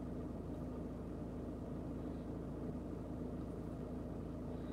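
Quiet, steady low hum of background noise inside a van cabin, with no distinct events.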